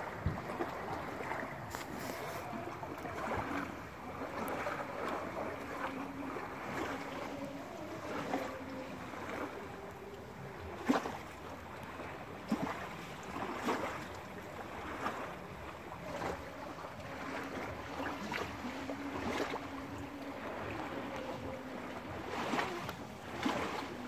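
Small lake waves lapping and splashing at the shoreline, with short sharp clicks. Mosquitoes buzz past the microphone now and then as faint wavering whines that come and go.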